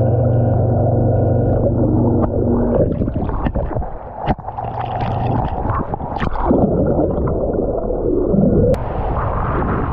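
Seabob underwater scooter's electric jet motor heard underwater as a steady, muffled hum for about the first three seconds. It then gives way to churning, splashing water and clicks as the scooter breaks the surface and dips under again. Near the end the sound suddenly opens into a bright rush of water and wind in open air.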